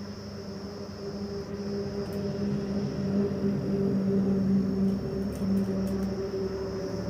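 A steady machine hum with a few fixed pitches, growing somewhat louder over the first few seconds, with a few faint clicks.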